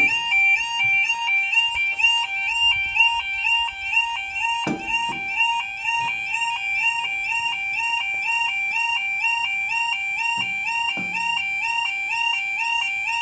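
Level crossing Yodalarm sounding: a loud electronic warning tone flipping rapidly between two pitches, the signal to road users that the barriers are lowering for an approaching train. A brief lower sound breaks in twice, about 5 and 10 seconds in.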